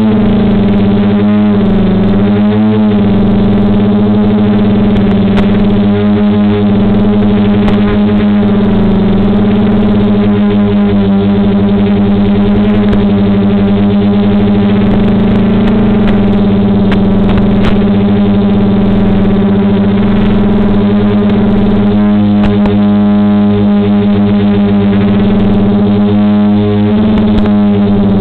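DJI F450 quadcopter's brushless motors and propellers humming steadily as it hovers in GPS position hold, a loud pitched drone whose pitch wavers a little in the first few seconds as the motors correct.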